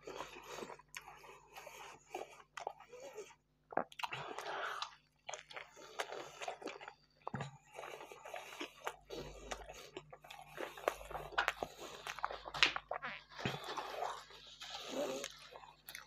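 A person chewing a mouthful of bread-wrapped food close to a clip-on microphone, with a steady run of short, crunchy clicks and wet mouth noises.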